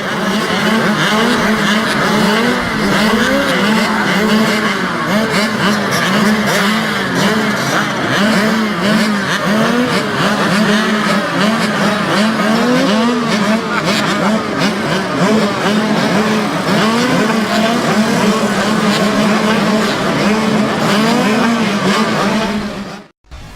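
A pack of kids' mini motorcycles racing, many small engines running at once, each revving up and falling back so the pitches rise and fall over one another. The sound cuts off abruptly near the end.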